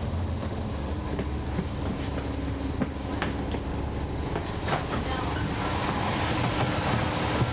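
On board a NABI 40-SFW transit bus: its Cummins ISL9 diesel and drivetrain running as a steady low drone, with interior rattles. A clunk about five seconds in, after which the engine and road noise grow louder.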